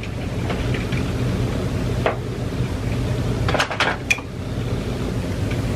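Small hard objects clinking and tapping a few times, once about two seconds in and in a quick cluster around four seconds, over a steady low hum.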